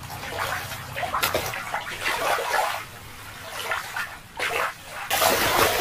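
Water splashing and sloshing, with a louder rush of noise starting near the end.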